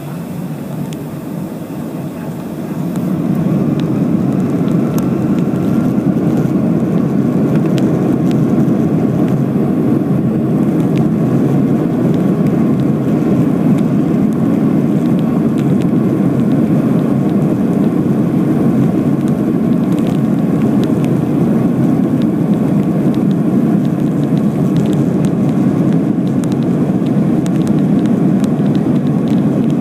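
Boeing 757-200's twin turbofan engines spooling up to takeoff thrust, heard from inside the cabin: a faint rising whine, then a sharp swell about three seconds in to a steady, loud, deep roar through the takeoff roll.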